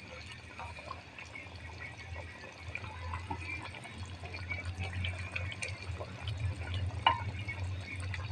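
Wooden spoon stirring chunks of simmered mutton in thin, watery gravy in a clay pot: wet sloshing and squelching with small knocks of the spoon on the pot, one sharper knock about seven seconds in. A steady low hum runs underneath, louder in the second half.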